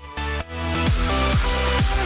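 Electronic dance music track: after a short break right at the start, the full beat returns about half a second in, with a steady kick drum about twice a second under sustained synth chords.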